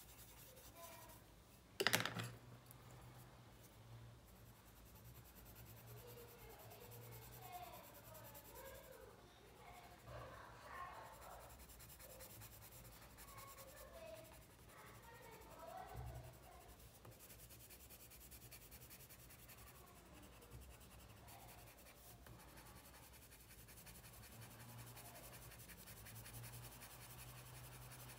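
Colored pencil scratching faintly on paper as it shades in small strokes, with a single sharp knock about two seconds in.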